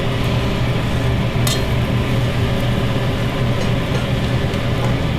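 Steady whir of a kitchen cooktop's exhaust fan with a constant low hum. A light metal clink of a spatula on the pan comes about a second and a half in.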